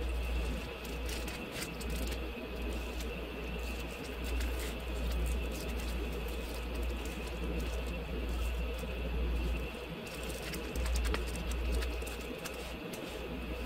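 Adhesive vinyl being picked and peeled off its paper backing with a weeding tool, giving scattered small clicks and crackles over a steady low rumble.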